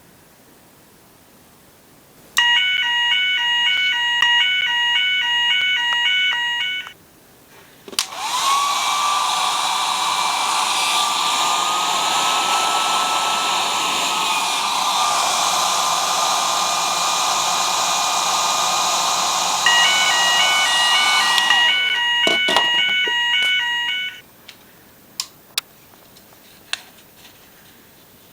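Electronic alarm beeping in a fast pulsing pattern, then a hair dryer blowing steadily for about thirteen seconds, its whine rising slightly midway, used to heat a heat detector. The beeping starts again as the dryer shuts off, and a few clicks follow.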